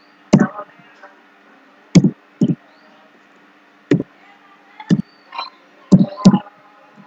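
Computer keyboard keys struck one at a time with slow, irregular pauses, about eight separate clicks, over a faint steady low hum.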